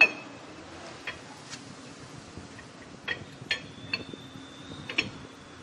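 Metal clinks and ticks as an Isuzu Elf truck's axle shaft flange is fitted back onto the hub studs: one sharp clink at the start, then a handful of lighter, irregular ticks.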